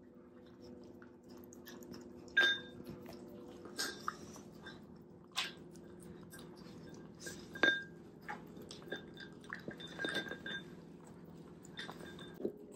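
Shiba Inu eating from a dish: chewing, with sharp clinks against the dish every so often, the loudest about two and a half and seven and a half seconds in.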